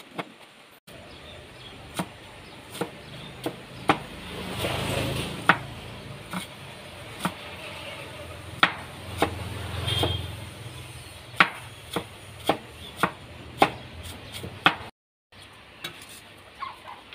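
Cleaver chopping carrot into small dice on a round wooden chopping board: sharp knocks of the blade striking the wood, irregular, about one or two a second.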